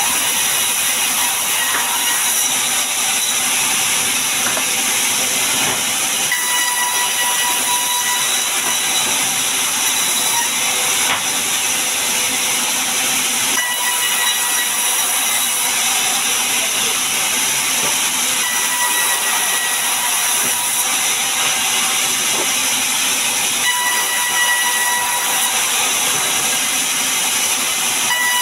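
Sawmill band saw ripping a long mahogany plank lengthwise, a loud steady hiss of the blade in the wood. A thin whistling tone rises out of it three times: about six seconds in, around the middle, and again for the last few seconds.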